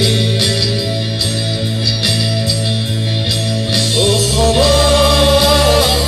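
Live rock band playing: drums keep a steady beat under sustained bass and guitar, and a male voice holds one long sung note near the end as the bass line drops.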